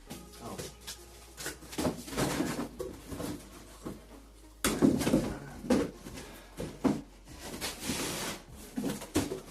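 Packaging being handled during an unboxing: irregular knocks and rustles, with a sharper knock about halfway through and a longer rustle near the end.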